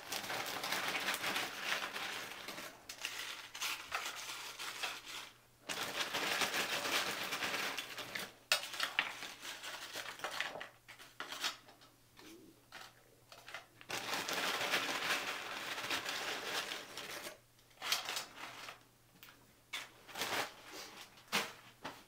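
Tortilla chips being handled and spread onto a metal sheet pan: crisp crackling and rustling in several long stretches with short pauses, dotted with light clicks.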